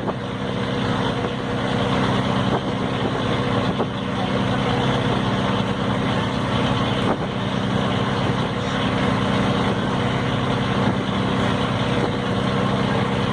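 Ferry boat's engine running at a steady, even pitch throughout.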